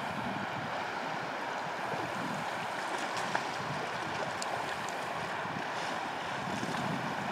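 Steady rush of river water flowing past, with a brief faint click about three seconds in.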